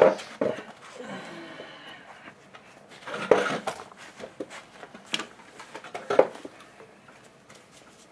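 Parts of a Stihl HS80 hedge trimmer being handled during reassembly: scattered clicks, knocks and short clatters of hard parts. The loudest knock comes right at the start, and there are others about three, five and six seconds in.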